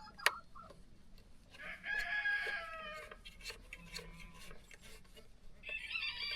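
Feral roosters crowing twice, each crow about a second and a half long, the second falling at its end. A sharp click comes just after the start, with a few lighter clicks scattered through.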